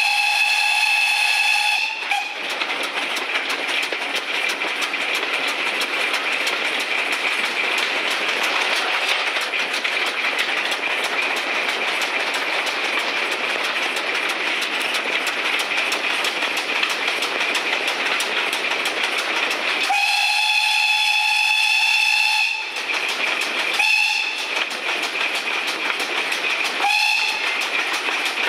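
Steam locomotive 1369 running, heard from its footplate, with a steady noise of wheels on the track. The loco's whistle sounds a long blast that ends about two seconds in, another long blast about twenty seconds in, then two short toots.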